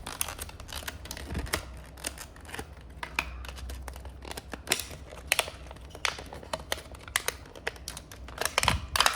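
Model bus and its plastic packaging being handled while unboxed: irregular sharp clicks and light rustling, with a quick run of louder clicks near the end.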